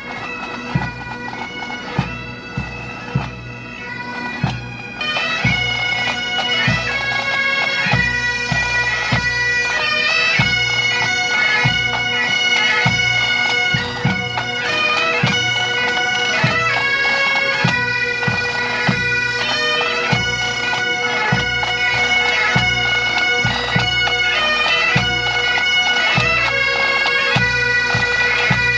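Bagpipes playing a tune over a steady drone, with a regular drum beat. The sound is thinner at first and grows fuller about five seconds in.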